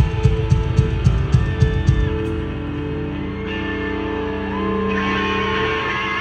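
Live rock band playing: electric guitar over a steady beat of drum hits that drops out about two seconds in, leaving held guitar notes with a sliding bend near the end.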